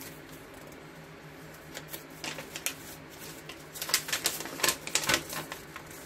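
A folded paper instruction sheet being handled and opened out: crisp crackles and clicks of paper, a few at first and then a dense run a little past the middle.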